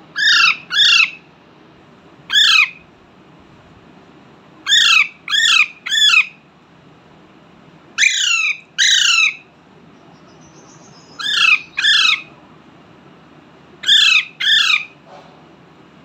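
Alexandrine parakeet giving loud, harsh squawks, mostly in pairs with a few seconds between groups. There are about a dozen calls, each short and sliding down in pitch.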